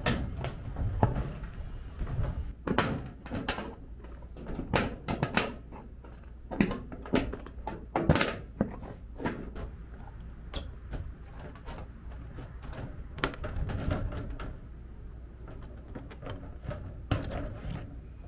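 Tin snips cutting a thin aluminum sheet: a run of short, crisp snips at an uneven pace, with the sheet flexing and rattling as it is cut.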